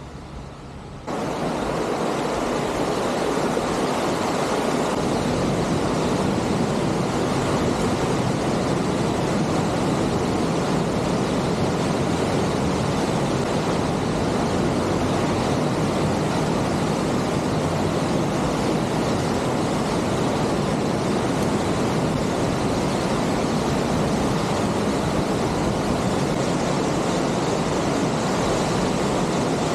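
Steady rush of a mountain stream and small waterfalls in a narrow rock gorge, an even, unbroken noise of water that starts suddenly about a second in.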